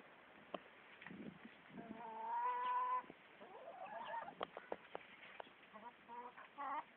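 Chickens calling and clucking, with one long held call lasting about a second, two seconds in. Short clicks are scattered throughout.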